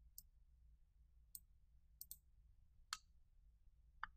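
Faint computer mouse clicks, about six of them at irregular intervals, one a quick double click, over near-silent room tone.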